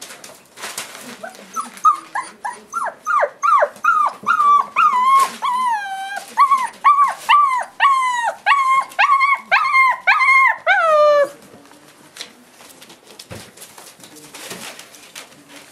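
Five-week-old Boerboel puppy whining: a run of short, high cries, each falling in pitch, about two or three a second, stopping about eleven seconds in.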